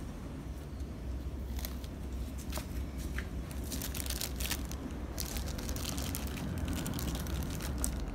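Clear plastic wrapping crinkling and crackling as it is handled, sparse at first and busier from about halfway in, over a steady low hum.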